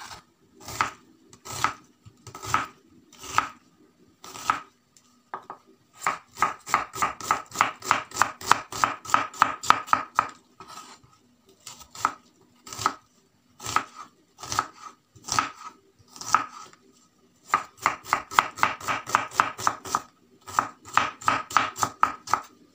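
Kitchen knife chopping an onion on a wooden cutting board. There are slow single cuts at first, then runs of quick, even chops several to a second, broken by short pauses.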